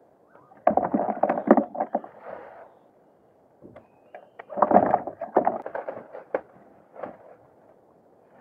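A wet net fish trap full of leaves being handled and dragged on the deck of a small boat: bursts of knocks against the hull and deck with rustling of net and leaves, once about a second in and again around the middle.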